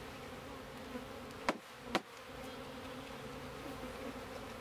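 A mass of Russian honeybees buzzing in a steady hum as they are poured from their shipping package into a hive. Two sharp knocks come about a second and a half and two seconds in.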